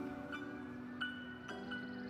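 Background music: a melody of sustained pitched notes, a new note struck about every half second.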